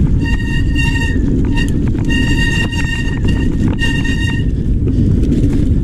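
Mountain bike ridden over a rough trail: constant wind buffeting and rattling, with a high, steady-pitched brake squeal that comes in about five short pulses and stops a little over four seconds in.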